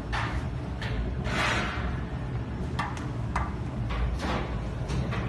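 Jewelry laser welding machine running with a steady low hum, with about eight irregular short clicks and brief hissing noises over it.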